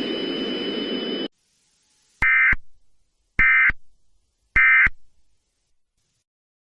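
A hissy background with steady high tones cuts off about a second in. Then three short buzzing bursts of EAS digital data tones sound a little over a second apart: the End of Message code that closes an Emergency Alert System broadcast.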